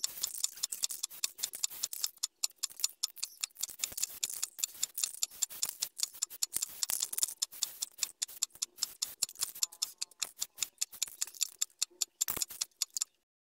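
Rapid, irregular metallic clicking, many times a second, like a spray can's mixing ball rattling as the aerosol can is shaken between coats; it stops abruptly near the end.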